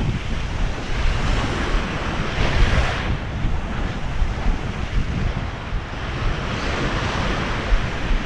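Surf washing onto a beach, with wind buffeting the microphone in a steady low rumble; the wash swells louder about two and a half seconds in.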